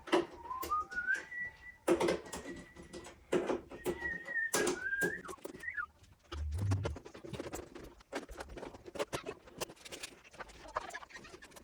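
A high whistling tone that glides upward, holds steady for a few seconds, then wavers and drops away about six seconds in. Scattered light clicks and knocks run underneath it.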